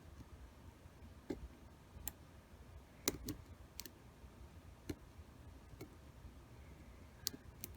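A lock pick and tension wrench working the five-pin tumbler cylinder of a Master Lock 532 padlock, giving about nine faint, irregular metal clicks and ticks as the pins are probed.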